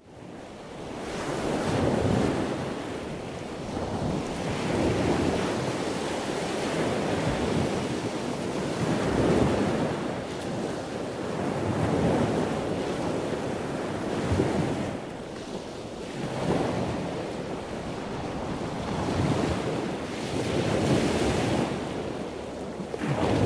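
Ocean waves washing in, the rush of water swelling and ebbing every two to three seconds, with wind. It fades in at the start.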